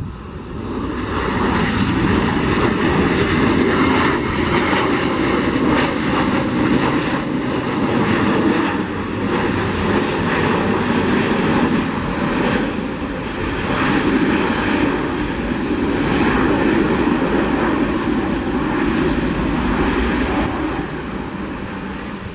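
Loud jet engine noise from a Bombardier Global Express business jet's two rear-mounted turbofans as it rolls out along the runway after landing. It swells about a second in, rises and falls a few times, and eases off near the end.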